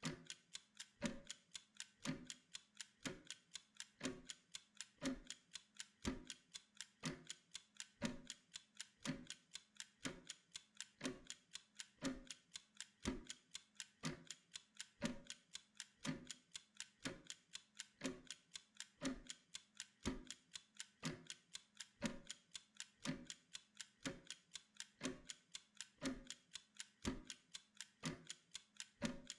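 Wind-up mechanical kitchen timer ticking steadily, with a stronger tick about once a second and lighter ticks between.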